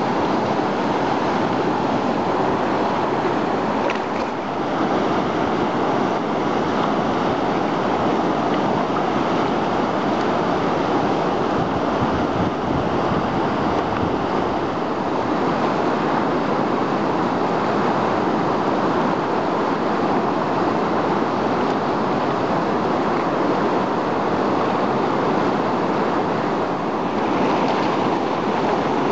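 Steady rushing roar of a whitewater rapid, water pouring over a river wave and hole.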